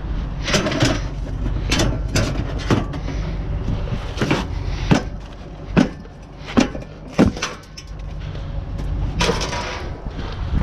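A run of sharp knocks and clatter, with several loud single knocks about halfway through, over wind rumbling on the microphone.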